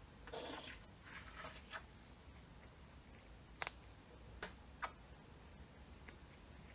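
Quiet handling sounds: two short scraping rubs, then three sharp clicks a second or less apart and a faint fourth tick.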